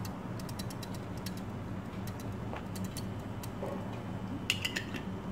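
Steady low hum with faint, rapid irregular clicking over it, and a few brief squeaky sounds near the end.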